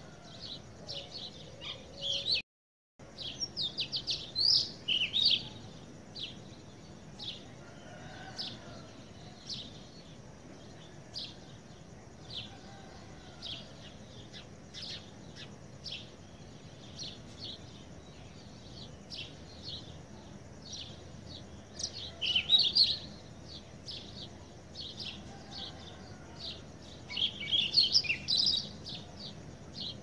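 Small birds chirping in quick, short high calls, with louder flurries a few seconds in, around two-thirds of the way through and near the end. The sound cuts out completely for about half a second near the start.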